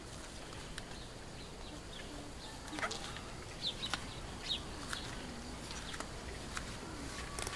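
Quiet backyard ambience with a few short, high chirps near the middle and scattered faint clicks.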